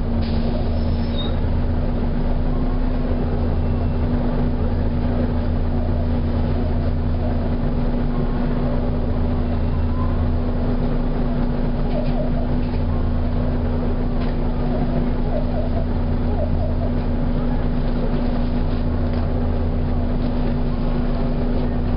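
Volvo B7TL double-decker bus with a steady whine and a low drone that swells and fades about every five seconds: the strange wailing noise that recurs every few seconds.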